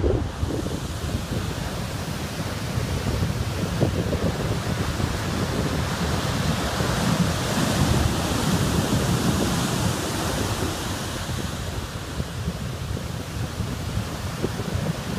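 Heavy storm-driven surf breaking and washing up the beach, a steady rush with a low rumble, swelling louder about halfway through. Wind buffets the microphone throughout.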